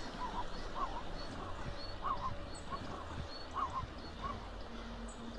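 About a dozen short animal calls, each rising then falling, over a steady noise of rushing river water.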